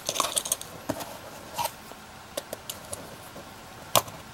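Small scattered plastic clicks and scrapes as a thin metal pry tool is worked into the seam of a small snap-fit plastic remote-shutter case, with one sharper click near the end.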